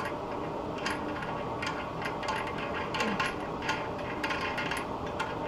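Irregular metallic clicks and taps of hand tools working an old toilet tank bolt and nut loose, a few clicks a second.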